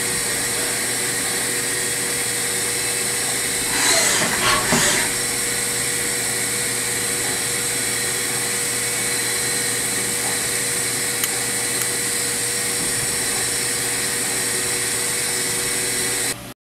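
2007 Haas VF-5 CNC vertical machining center running, with a steady whirring hum and high whine. A brief, louder noisy burst comes about four seconds in. The sound cuts off abruptly near the end.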